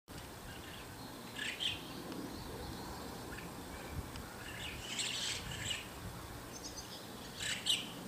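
White-cheeked starling calling: short scratchy chirps in three louder bursts, about a second and a half in, around five seconds in and near the end, with softer chirps between.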